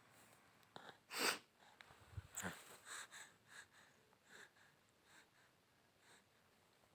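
Faint, rhythmic grinding strokes of a stone pestle crushing fresh ginger in a stone mortar (langri or sil-batta), about two to three strokes a second, with one louder scrape about a second in.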